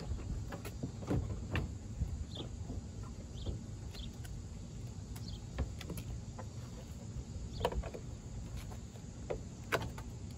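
Scattered light clicks and knocks of a Ram 1500's plastic headlight assembly being unlatched, pulled free and handled, over a steady low rumble.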